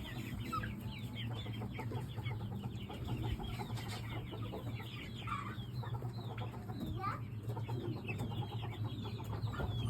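A flock of Shamo chickens clucking and calling, many short overlapping calls throughout, over a steady low hum.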